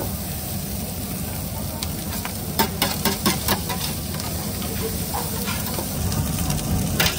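Food sizzling and frying on a hot cooktop with a steady hiss. A quick run of sharp clicks comes about three seconds in, and another near the end, like utensils knocking against the cooking surface.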